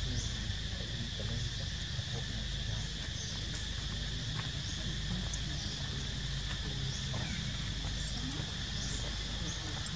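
Steady, high-pitched drone of insects, with a low rumble underneath and scattered faint short chirps.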